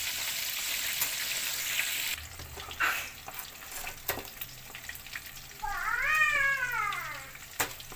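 Chicken pieces deep-frying in oil with a steady sizzle that stops suddenly about two seconds in. A few sharp clicks of metal tongs follow as the pieces are lifted out. About six seconds in a cat meows once, a long call that rises and then falls.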